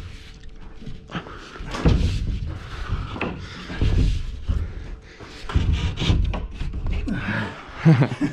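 Several heavy thumps and knocks a second or two apart, from a drywall sheet being handled and pushed into place.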